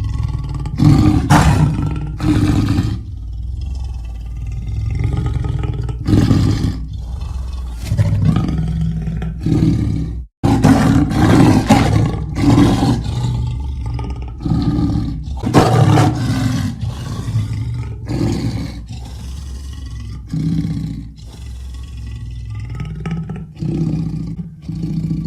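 Leopard calling in a long series of deep roars, each a second or so long, with a brief break in the sound about ten seconds in.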